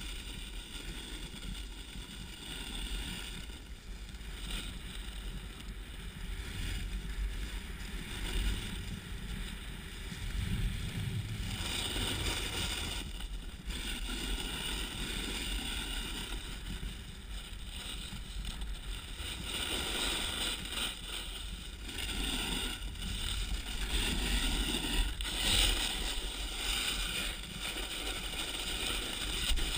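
Snowboard sliding and carving over snow, a continuous scraping hiss that swells and fades with the turns.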